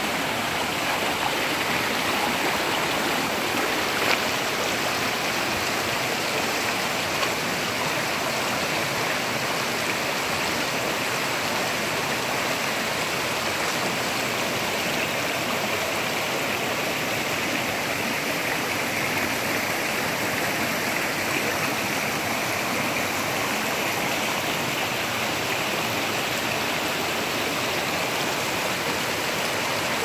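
Rocky mountain stream rushing over boulders and small cascades: a steady, even rush of water.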